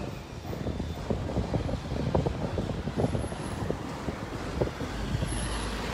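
Street noise picked up by a phone carried while walking: a steady low rumble with many irregular soft thumps and rustles, from footsteps and the phone being handled.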